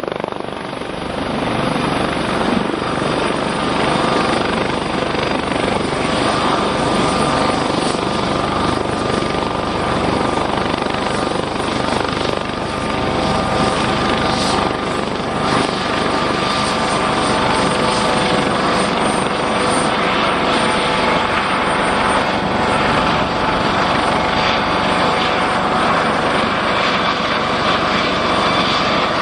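US Coast Guard MH-65 Dolphin (Eurocopter AS365 Dauphin variant), a twin-engined helicopter with its rotors turning close by. It makes a loud, steady whine with several held tones over dense rotor and engine noise.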